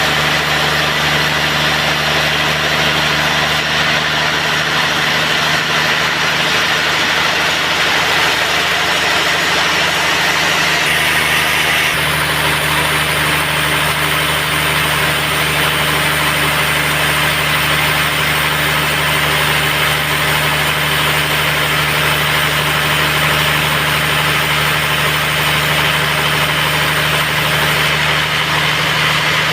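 Band sawmill running steadily, a loud, even machine drone. Its tone shifts once, about eleven to twelve seconds in.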